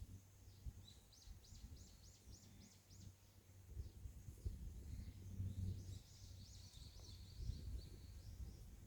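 Small songbird singing faintly: a quick run of about eight high notes, each sweeping downward, about a second in, then another high twittering trill later on, over a steady low rumble.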